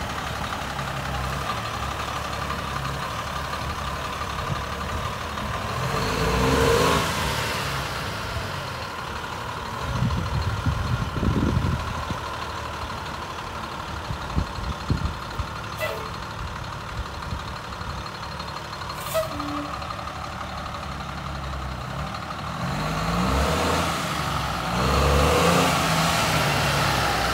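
Ford L8000 tandem-axle dump truck's engine running as the truck drives, revving up and growing louder about six seconds in and again near the end as it pulls away under power.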